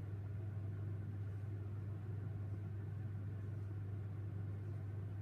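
Steady low background hum, unchanging in pitch and level.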